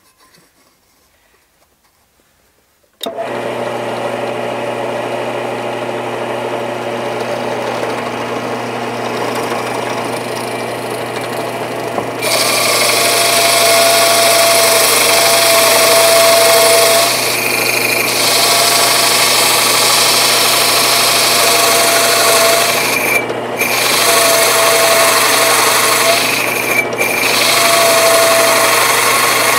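Drill press motor switching on about three seconds in and running steadily, then about nine seconds later a hole saw starts cutting into wood, a louder rasping hiss with a faint intermittent squeal and two brief dips as the cut eases off.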